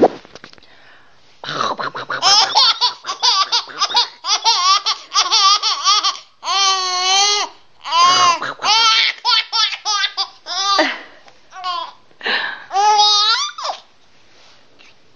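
Baby laughing hard in quick repeated bouts of high-pitched giggles and squeals, including a long drawn-out squeal about six seconds in. The laughter stops a little before the end. A brief click sounds at the very start.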